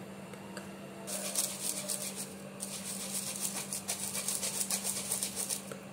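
Cocoa powder being sifted through a small plastic tea strainer over a steel bowl, the strainer shaken and tapped: rapid dry ticking and rubbing that starts about a second in, pauses briefly, then carries on until just before the end.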